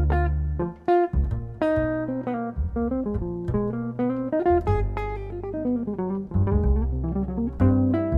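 Jazz guitar on an archtop playing an instrumental solo of plucked melody notes and chords, with double bass notes underneath.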